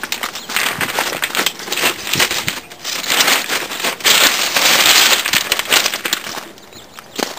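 Crunching footsteps on gravel, a dense run of crackling steps that is loudest around the middle.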